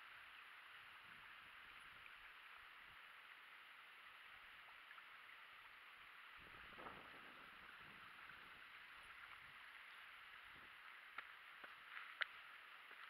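Near silence: a faint steady hiss, with a few light clicks near the end, the loudest a single sharp click about twelve seconds in.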